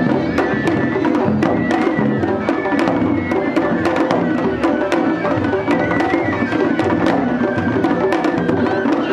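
Japanese festival hayashi music: a high wind instrument plays a stepping melody over a continuous run of quick drum strokes and sharp clicks.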